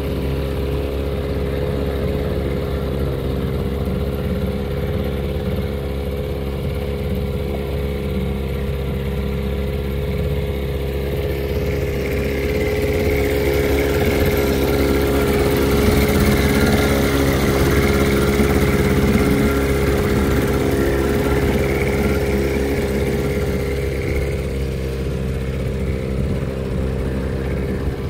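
1982 Evinrude 15 hp two-cylinder two-stroke outboard running steadily, pushing the inflatable dinghy along under way. It picks up a little about twelve seconds in and eases back near the end.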